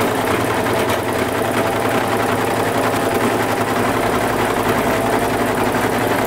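Electric sewing machine running steadily at speed, stitching a knit t-shirt as the fabric is fed under the foot, with a fast, even stitching rhythm.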